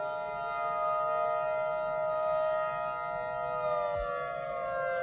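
Civil defense sirens sounding together as several steady, overlapping tones. A cluster of tones cuts off about four seconds in, while the remaining siren tones slowly wind down in pitch near the end.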